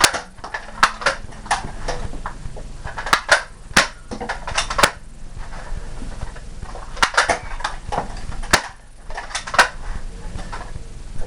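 Toy Nerf blasters being primed and fired, with foam darts smacking into things: irregular sharp clicks and knocks in quick clusters.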